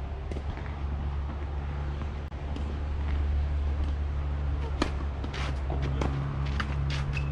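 Tennis racket striking the ball on a serve, a sharp crack about two-thirds of the way in, followed by a few lighter pops of the rally, over a steady low rumble.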